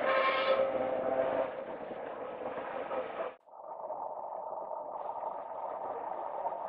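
Historic electric tram running on its rails: a steady rumble with a whining tone. About halfway the sound cuts out abruptly for a moment, and a duller steady running sound follows.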